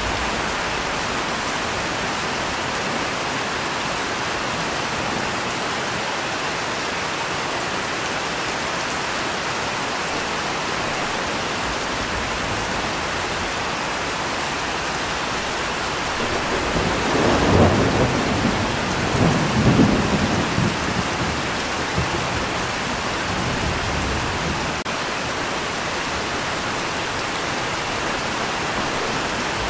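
Steady rain falling throughout, with a roll of thunder a little past halfway that swells twice and dies away over about five seconds.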